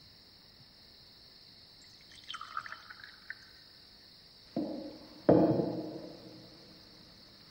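Small clinks of tableware about two seconds in, then two sudden knocks a little under a second apart. The second knock is the loudest and dies away over about a second.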